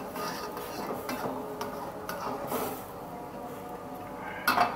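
Metal spatula scraping and stirring in a steel wok of boiling water, several short strokes, then a sharp clank of metal against the wok near the end.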